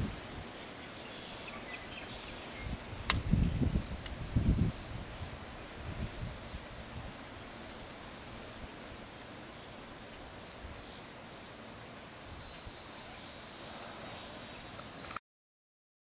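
Steady high-pitched insect trill, with gusts of wind buffeting the microphone about three and four seconds in; the sound cuts off suddenly near the end.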